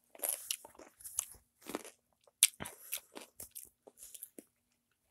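A person crunching and chewing a pickle close to the microphone: a string of irregular short wet crunches, the loudest about halfway through.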